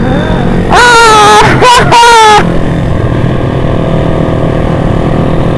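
Engine of a Yamaha Jupiter Z underbone motorcycle bored out to 180cc, running steadily at road speed. Between about one and two and a half seconds in, two loud high-pitched sounds slide down in pitch over it.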